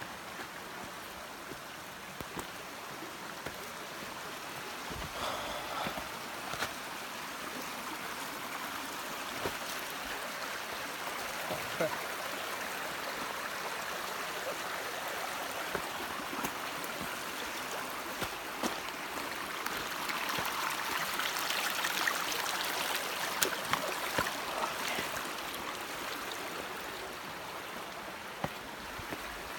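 Creek water running over rocks, a steady rushing that grows louder past the middle and then eases off, with a few sharp clicks and knocks.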